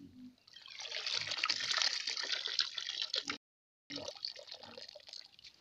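Water draining and dripping from a plastic mesh basket of freshly scooped azolla back into the pond, a splashy trickle. It builds over the first seconds, cuts off suddenly about three and a half seconds in, then comes back fainter with small crackles.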